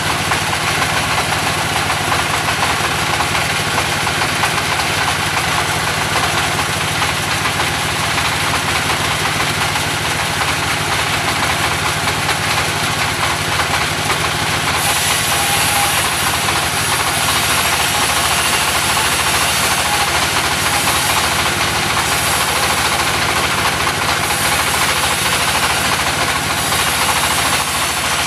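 Engine of a portable sawmill running steadily. About halfway through, a higher hiss joins in over the engine.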